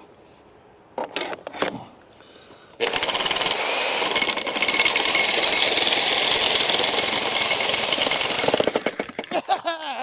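TR Industrial 120-volt corded electric demolition hammer, fitted with a ground rod driver bit, driving a rebar pin into the ground. It runs for about six seconds as rapid, steady hammering with a high motor whine, after a couple of short knocks about a second in.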